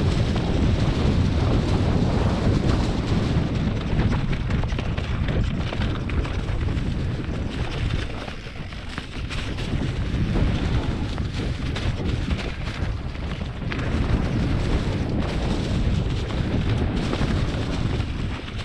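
Wind buffeting the microphone of a mountain biker's camera while riding downhill, over the rattle of the bike and its tyres rolling through dry fallen leaves. The rumble eases briefly about eight seconds in.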